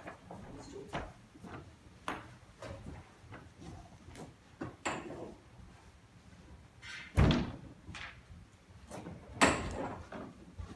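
Chair being moved and bumped on the floor: scattered knocks, with two louder thuds about seven and nine and a half seconds in.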